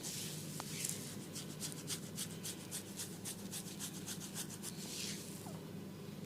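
Oiled hands rubbing a client's scalp and hair in a head massage: a quick, even run of short rubbing strokes, about five a second, between slower sweeping rubs. A low steady hum runs underneath.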